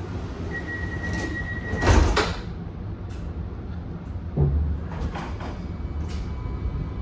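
Inside an Alstom Citadis X05 tram: a steady low rumble, with a high steady tone that cuts off about two seconds in as a loud, brief rushing sound peaks, then a dull thump about four and a half seconds in.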